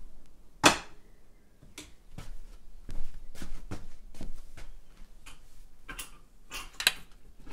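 Irregular knocks and taps of a large stretched canvas being gripped and handled on its easel, with a sharp knock about two-thirds of a second in and another near the end.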